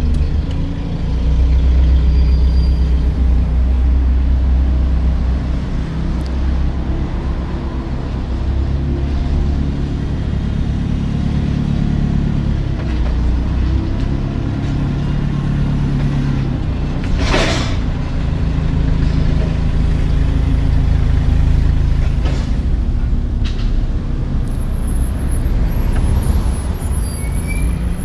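Peterbilt 379 semi truck's diesel engine running, its pitch shifting up and down. About two-thirds of the way through there is one short, sharp hiss of air from the air brakes.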